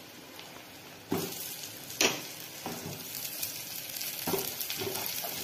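Stuffed bitter gourd (karela) pieces going into hot oil and masala in a kadhai and starting to sizzle and fry. The sizzle jumps up about a second in, with a few sharp knocks as pieces land in the pan.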